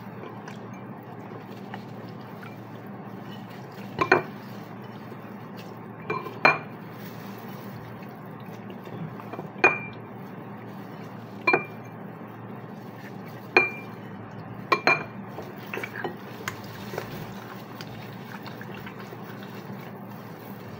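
Metal spoon clinking against a ceramic bowl while marinade is spooned over a raw chicken: several sharp, briefly ringing clinks a second or two apart, most between about four and fifteen seconds in, over a steady low hum.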